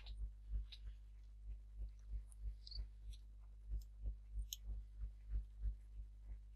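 Computer mouse clicking, faint and repeated about three times a second with a few short gaps, each click a soft low thump with a light tick on top.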